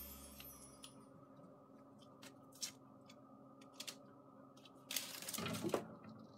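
Kittens' claws clicking and scrabbling on a corrugated cardboard scratcher: a few light ticks, then a longer scratching rustle about five seconds in. Background music fades out at the start.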